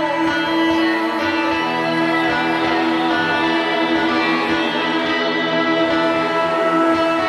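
Instrumental passage of a psychedelic rock song: a held drone note with layered sustained tones above it over a steady low drum pulse.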